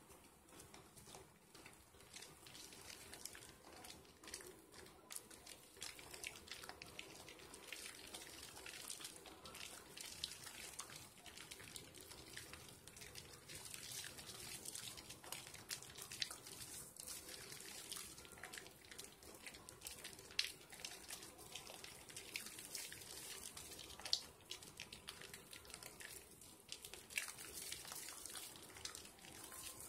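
Wet hands working a soap sliver into a lather: soft, wet rubbing with many small crackling clicks from the foam, and a few sharper clicks about two-thirds of the way through.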